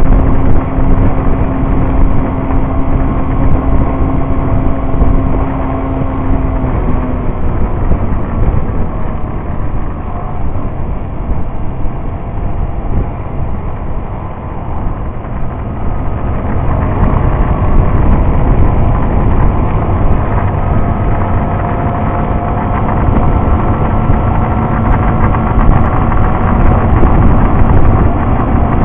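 Motorcycle engine running at road speed under heavy wind rush on the microphone. The engine note eases and falls slightly about a quarter of the way through, then comes back a little past halfway.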